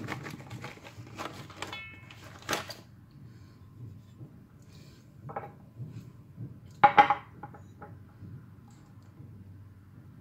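Kitchenware clinking and knocking: scattered light clicks early on, a knock about five seconds in, and a sharp metallic clatter with a brief ring about seven seconds in.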